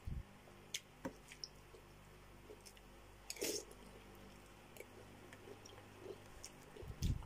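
Close-miked eating of chicken soup: faint wet mouth clicks and chewing, with one louder wet mouthful from the spoon about three and a half seconds in.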